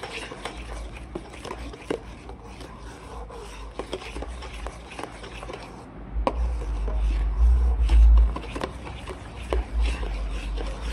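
A spoon scraping and clicking against a metal bowl as egg yolks and sugar are stirred quickly into hot cream. A loud low rumble joins in from about six seconds to about nine seconds in.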